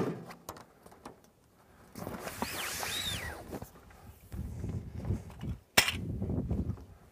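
A metal awning pole being taken down and handled. There is a scraping squeak about two to three seconds in, shuffling footsteps, and one sharp clack near six seconds as the pole hits the ground.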